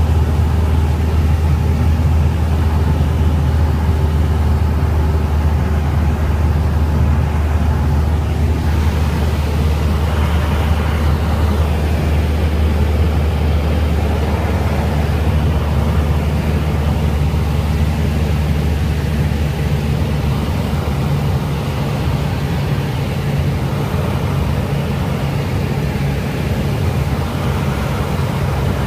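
Cessna 172's piston engine and propeller running in a steady drone. The engine note shifts about nine seconds in and settles into a slightly different hum around fifteen seconds in.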